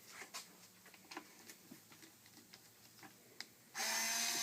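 Light clicks and taps of a plastic robotic pool cleaner housing being handled, then near the end a cordless power screwdriver running for about a second, backing out a screw that holds the pump motor.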